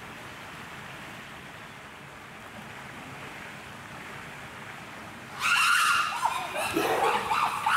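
Steady background hiss, then about five and a half seconds in, chimpanzees break into loud, high-pitched wavering screams that carry on to the end.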